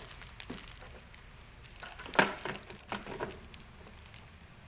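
Things being handled and moved about in a scooter's plastic under-seat storage compartment: a few short knocks and clatters, the sharpest about two seconds in, then a quick run of smaller knocks.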